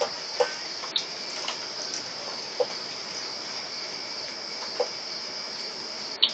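Steady high-pitched chorus of night insects, with a handful of short sharp clicks scattered through it, the last near the end being the loudest.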